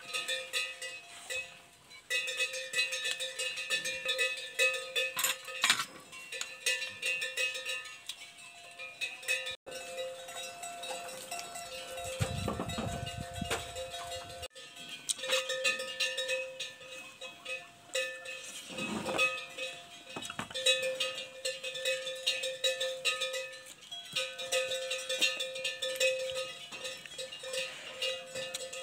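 Buffalo bells (kalong) worn by grazing water buffalo, clanking irregularly and ringing on one steady pitch with bright overtones.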